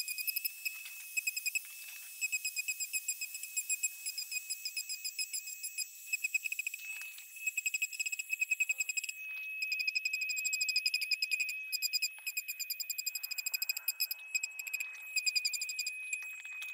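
Dremel 4000 rotary tool running at high speed, sanding EVA foam: a high-pitched whine that flutters in quick pulses, with a steadier stretch a little past the middle.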